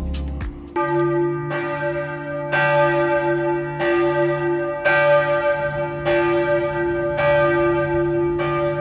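Church bell of Braunschweig Cathedral ringing, starting just under a second in: about eight strokes a little over a second apart, each leaving a long humming ring that carries into the next.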